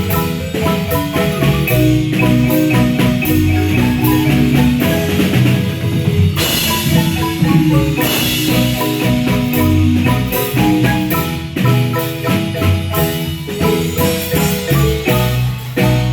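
Marimba band playing: many quick mallet notes on the wooden keys over a low bass line, with a brief hiss of higher percussion about six seconds in.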